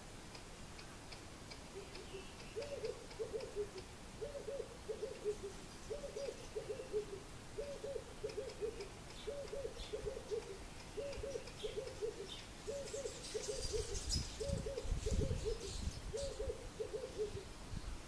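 A bird's low hooting call, a two-part phrase repeated about every one and a half seconds, about ten times in a row. Faint high ticks sound alongside, and a short burst of rustling comes about three-quarters of the way through.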